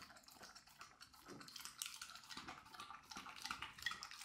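Pit bull lapping beer from a glass mug: a quick, irregular run of faint wet laps.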